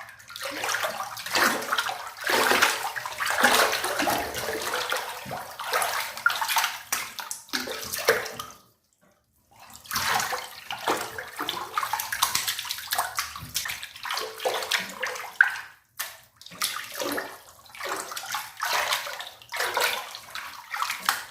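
Water splashing and sloshing in a bathtub in uneven bursts, with a brief pause about nine seconds in.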